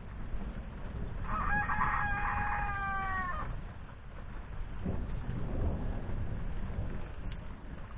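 A rooster crows once, a crow of about two seconds that drops in pitch at its end, over a steady low rumble of thunder that swells again a few seconds later.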